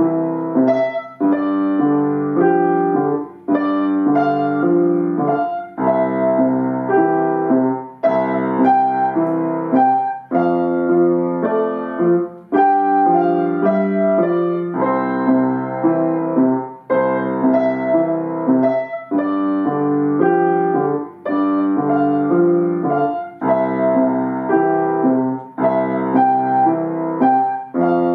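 Upright piano playing a steady piece, chords with a bass line beneath, in regular phrases of about two seconds each.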